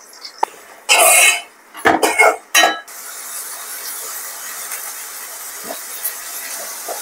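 A spoon scrapes and clinks against the pan several times as green chilies and onions are stirred into hot oil. From about three seconds in, the onions sizzle steadily as they fry.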